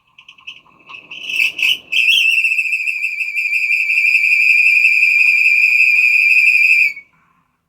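Bionaire tower fan's motor run on its red, highest-speed wire, giving a loud, steady high-pitched squealing whine that stutters at first and cuts off about seven seconds in. The noise is the sign of a worn motor bushing, which the repairer judges damaged.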